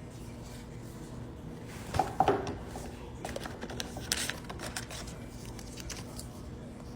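Packaging being handled while a product is unboxed: scattered rustles and sharp clicks, loudest about two seconds in and again around four seconds in, over a steady low hum.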